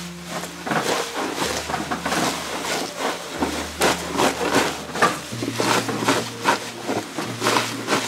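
Gloved hands rubbing and kneading salt into fresh Aso takana mustard greens, a rhythmic crisp rustling and scrunching of leaves and stems at about two to three strokes a second. This is the salting stage of making takana shinzuke pickles.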